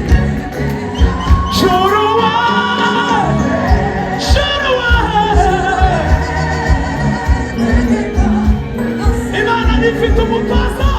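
Gospel song: sung voices carrying a wavering melody over band accompaniment with a steady drum beat.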